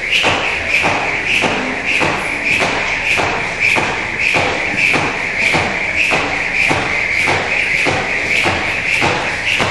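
Jump rope doing double-unders: a steady whir of the spinning rope with an even tap of rope and feet on the floor about every 0.6 seconds, around sixteen times.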